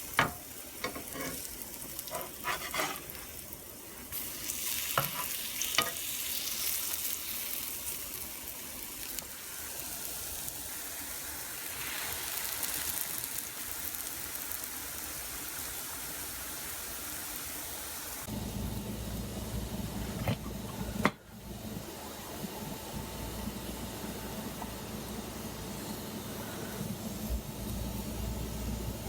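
Pancake batter sizzling in vegan butter in a frying pan, with a steady high hiss and a few sharp utensil clicks at first. About two-thirds of the way through, a steady low hum joins the sizzle.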